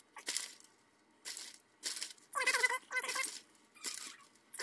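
Plastic bag of shredded cheese crinkling and shaking in short bursts as cheese is sprinkled over hard taco shells. Two short high-pitched cries come in about halfway through.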